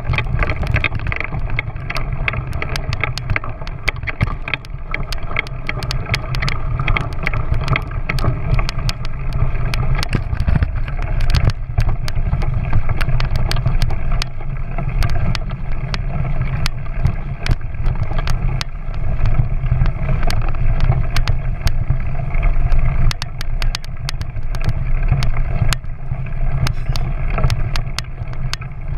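Small motorcycle engine running at a steady speed while riding over a rough dirt track, with frequent clicks and rattles from the bumps.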